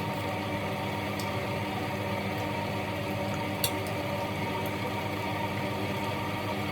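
Steady mechanical hum at an even level, with a few faint clicks, the clearest a little past the middle.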